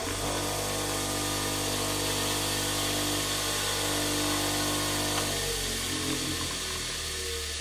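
An 8-inch bench grinder running with a wire wheel fitted, a steady motor hum with a ringing whine on top. The owner believes the wire wheel, with poor clamping and poor balance, makes it wobble and vibrate badly. About five seconds in, the hum changes pitch.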